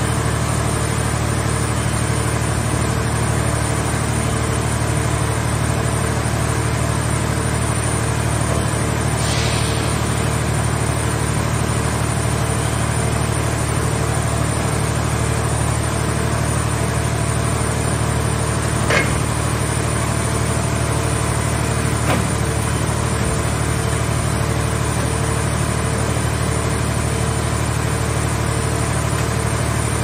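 Vehicle shell baler's hydraulic power unit running steadily with a constant low hum while its grapple works, with a brief hiss about nine seconds in and two sharp metallic knocks near the end of the second third.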